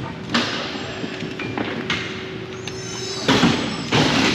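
Game play in a gym: about four sharp thuds, with the last two close together near the end, over a steady low hum.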